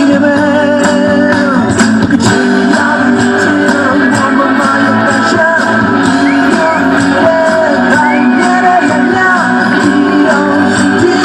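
Music with a strummed guitar, sustained notes and some singing.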